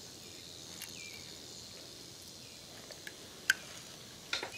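Beagle puppy nuzzling against a blanket and a hand: a few soft clicks and rustles, the sharpest about three and a half seconds in, over a faint steady high-pitched hiss.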